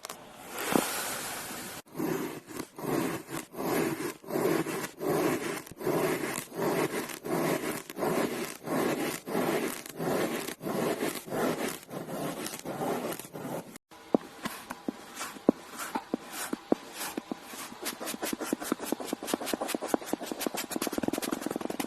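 Rhythmic scraping or rubbing strokes, about two a second. About two-thirds of the way in they break off abruptly and give way to a faster, finer scraping with a few sharp clicks.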